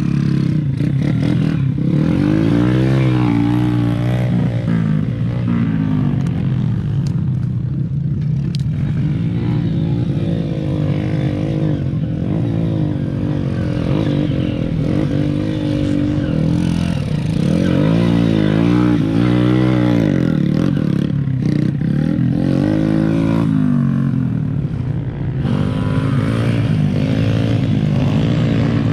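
Dirt bike engines racing on a motocross track, revving up and falling off again and again as the riders work the throttle, with more than one bike heard at once at times.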